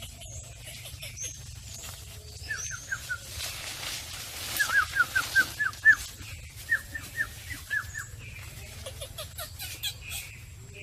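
Small animal calls: runs of short, high-pitched chirping notes in quick groups of four to seven, loudest a little past the middle, with fainter higher chirps over them.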